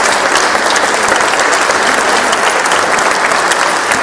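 Audience applauding: many hands clapping together in a steady, dense wash that eases slightly near the end.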